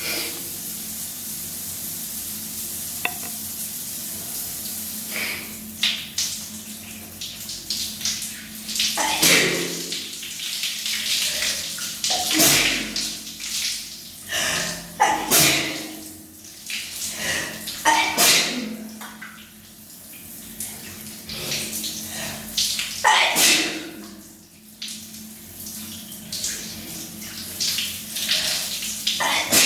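Shower water running steadily, broken from about nine seconds in by several loud sneezes from a person with a cold, brought on by sneeze-inducing Chhinkni snuff.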